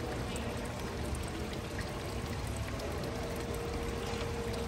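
Steady rush of running, pouring water.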